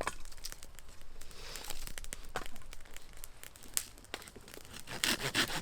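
Dry twigs and dead leaves crackling and crunching in irregular sharp snaps, with a denser rustling burst about five seconds in.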